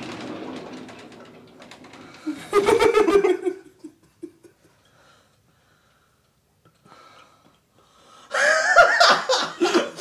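A door swinging open, a short vocal outburst a couple of seconds later, then a man breaking into loud laughter about eight seconds in.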